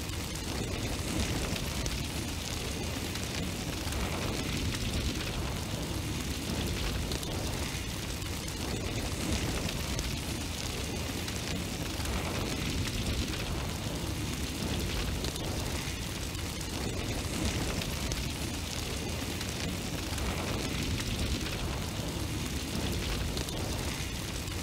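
Continuous roaring rush of noise, a flame or blast sound effect, swelling slightly every few seconds, with no music.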